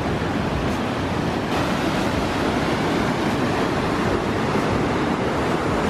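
White-water river rapids rushing through a narrow lava-rock gorge: a steady, loud rush of churning water.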